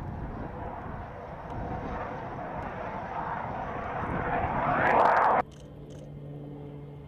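Fighter jet engine noise as jets pass along the runway, a rushing jet sound that builds to its loudest about five seconds in and then cuts off abruptly. After that comes a quieter steady drone with a low hum from a propeller-driven trainer coming in to land.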